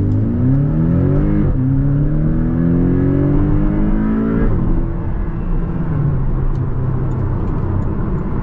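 Porsche 718 Cayman's 300 hp four-cylinder engine pulling hard under acceleration, heard from inside the cabin: its pitch climbs, drops suddenly at a quick robotized-gearbox upshift about a second and a half in, climbs again, drops at a second upshift about four and a half seconds in, then runs on steadily.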